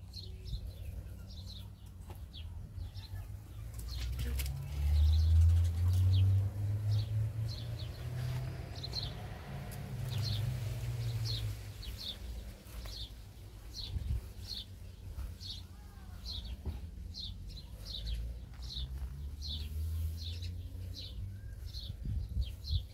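A small bird chirping repeatedly, short high chirps a little more than once a second, over a low rumble that swells loudest about five seconds in and again around ten seconds.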